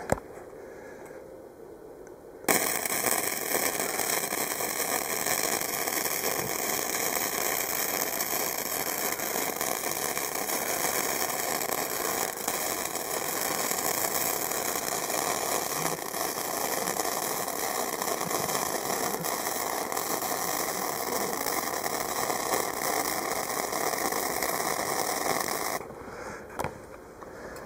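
Harbor Freight Easy-Flux 125 flux-core wire welder's arc crackling steadily through one long, unbroken bead, joining a stainless V-band flange to aluminized steel exhaust pipe. The arc strikes about two and a half seconds in and stops a couple of seconds before the end.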